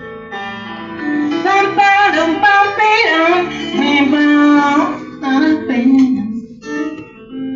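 Live music: a singer's wordless vocal line sliding up and down in pitch over plucked guitar accompaniment, loudest in the middle and breaking into shorter phrases near the end.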